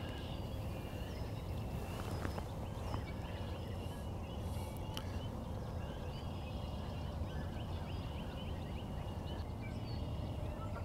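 Birds calling outdoors: many short chirps and calls, scattered and overlapping, over a steady low rumble.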